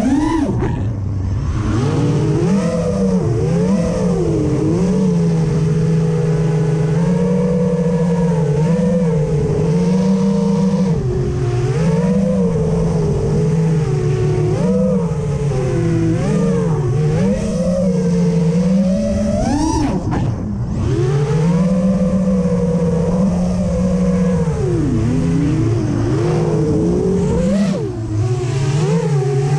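FPV quadcopter's brushless motors and propellers buzzing, the pitch rising and falling continually as the throttle is worked, with a sharp climb in pitch about two-thirds of the way through and a brief dip near the end.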